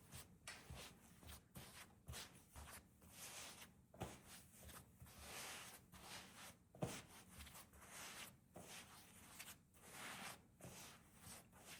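Faint, irregular rustling and scraping of household objects being handled, with a sharp click about seven seconds in.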